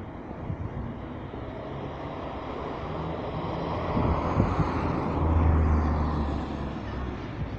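Vehicle noise passing by, swelling to a peak with a deep rumble about five to six seconds in and then fading.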